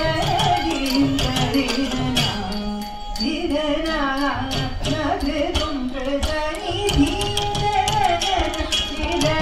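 Live Carnatic music: an ornamented melody gliding between notes over a dense rhythm of sharp percussion strokes.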